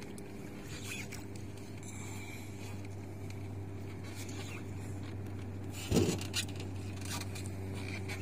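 Boat engine idling with a steady low hum, with a brief louder sound about six seconds in.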